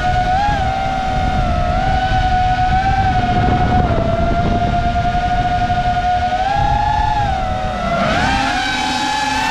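Racing quadcopter's brushless motors and propellers whining, the pitch rising and falling with the throttle. Near the end several motor tones briefly split apart. Under it is a low rumble of wind and vibration on the drone-mounted microphone.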